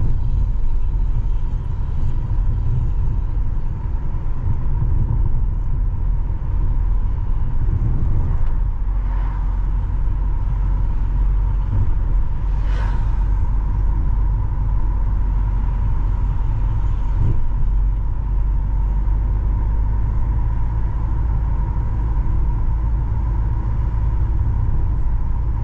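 Car driving along a road: a steady low rumble of engine and tyres, with a faint steady whine above it and a brief hiss about halfway through.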